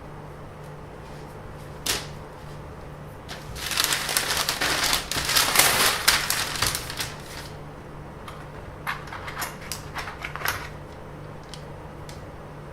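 Handling noise: a single click about two seconds in, a dense crackling rustle lasting about four seconds, then a scatter of light clicks, over a low steady hum.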